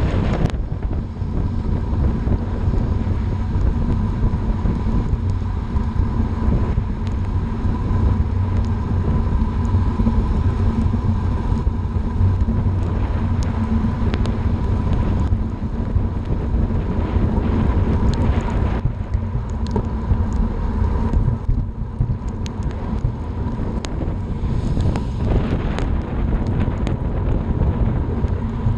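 Wind buffeting the microphone of a bicycle-mounted camera while riding fast on a wet road in the rain: a steady low rush with a faint steady hum and scattered small ticks.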